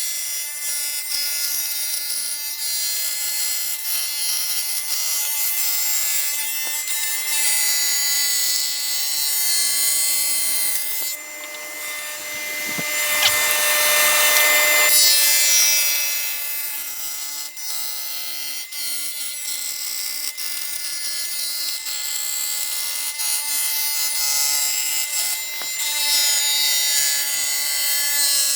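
Table saw with a dado blade stack running steadily, wood being fed through it with a continuous high-pitched cutting hiss over the motor's hum; the cut grows louder for about four seconds around the middle.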